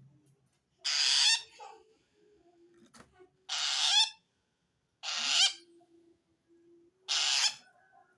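Long-tailed shrike (cendet) giving four harsh, rasping calls, each about half a second long, a second or two apart. The uploader takes this kind of call as a sign that the shrike feels threatened by another shrike.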